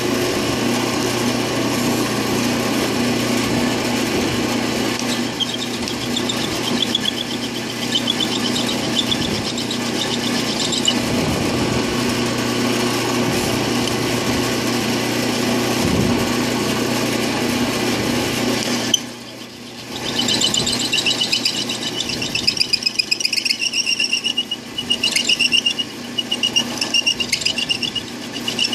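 Drill press running with a Dremel grinding stone in the chuck, grinding down the top face of a steel solid valve lifter cup to reduce valve lash. A steady motor hum runs throughout, with a pulsing high-pitched scraping while the stone bites into the metal, about five seconds in and again from about two-thirds through after a brief dip.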